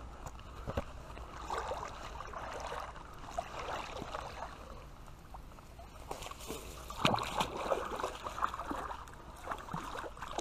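Creek water splashing and sloshing irregularly, with scattered light knocks, louder and busier in the second half, as a hooked brown trout is fought out from under a bank.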